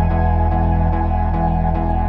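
Background music: ambient electronic track with sustained synth tones and soft notes changing about three times a second.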